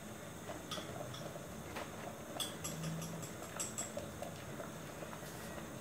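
Faint, scattered clicks and light taps of items being handled in a kitchen, over a low steady hiss.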